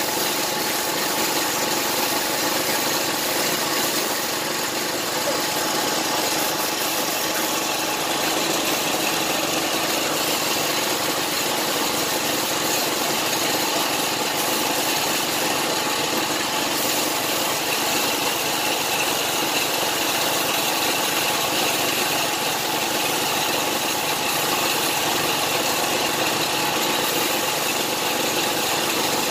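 A gravity-feed spray gun hisses steadily as paint is sprayed, while an air compressor runs without a break.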